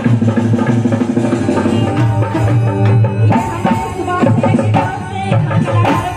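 Live Indian stage music through PA speakers: a woman singing into a microphone over keyboard and drum accompaniment, with heavy bass and a steady beat.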